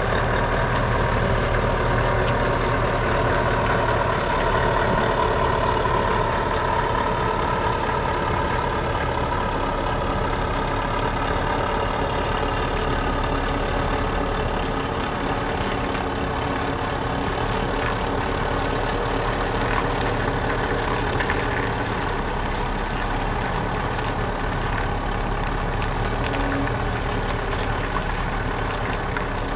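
Scania truck's diesel engine running steadily at low revs as the rig moves off slowly, its level easing a little as it draws away.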